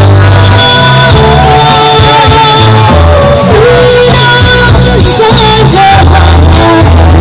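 Live Pakistani pop song through a festival PA system, very loud: a woman singing a wavering melody over backing music with a heavy bass line.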